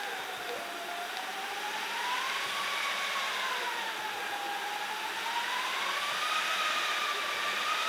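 Hand-made wind sound effect: a steady rushing noise with a whistling howl that rises and falls slowly every few seconds, edging higher toward the end.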